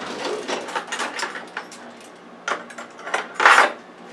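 Metal utensils clinking and rattling as a smaller spoon is fetched from among the kitchen cutlery: a run of light clicks, then a louder rattling scrape about three and a half seconds in.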